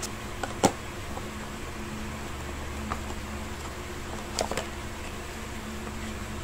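Cardboard inserts of a tablet box being lifted and handled, giving a few light taps and clicks: a sharp one about half a second in, a faint one near three seconds, and a pair around four and a half seconds. A steady low hum runs underneath.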